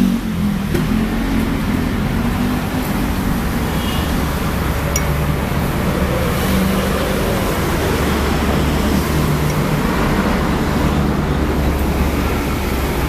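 Steady rumble of passing road traffic and general street noise, with a light click about five seconds in.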